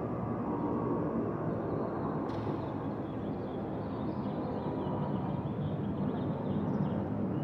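Twin-engine jet airliner climbing overhead after takeoff, its engines giving a steady, distant rumble.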